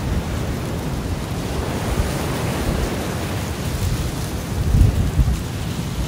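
Ocean surf washing steadily onto the shore, picked up by a phone's microphone. Low wind buffets hit the microphone and swell about five seconds in.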